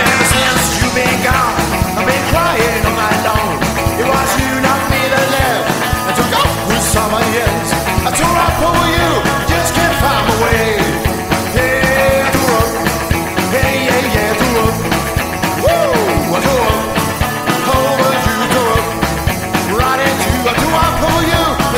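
Rockabilly band recording in an instrumental stretch: a lead guitar line of sliding, bending notes over a steady beat.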